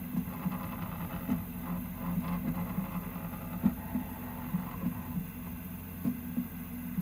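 Prusa MK3S+ 3D printer running, its stepper motors humming and shifting in pitch as the axes move, with irregular rattling clicks from the Y-axis and bed, the rattle being the fault under investigation.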